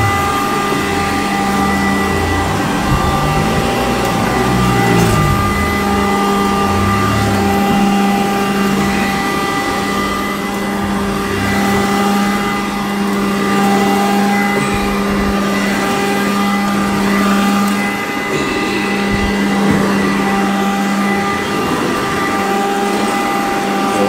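Sanitaire upright vacuum cleaner running on carpet: a steady motor whine over rushing air, with an uneven low rumble as the vacuum is pushed over the carpet.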